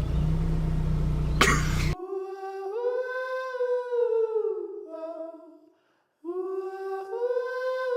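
A steady low car-interior rumble with a short rustling burst, then an abrupt cut about two seconds in to a woman's voice humming long wordless notes that slide in pitch, in two phrases with a short silence between.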